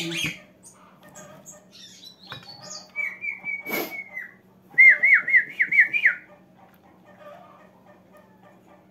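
Caged pet songbird singing: two short phrases of quick repeated whistled notes, the second louder, with a short click between them.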